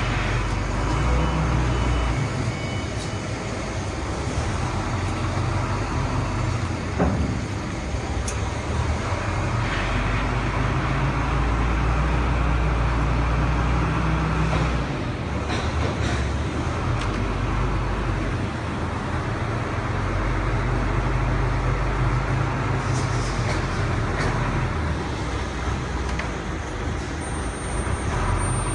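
Low rumble of heavy machinery running, swelling and easing several times, with a few sharp knocks and clanks.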